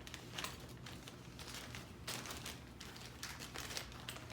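Faint crinkling and rustling of packaging being handled, a series of short irregular rustles.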